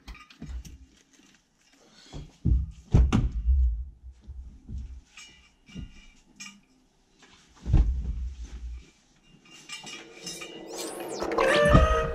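Knocks, thumps and clinks of people moving about and handling things in a car's cabin, the heaviest thumps about two and a half and eight seconds in. Over the last couple of seconds music fades in, starting with a rising sweep.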